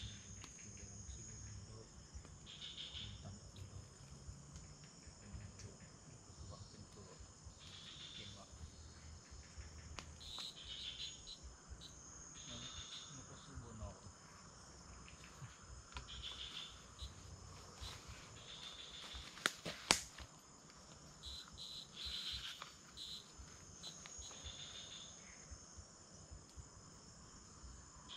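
Night-time jungle insect chorus: a steady high buzzing with a short chirping call repeating every couple of seconds. A sharp snap about twenty seconds in stands out above it.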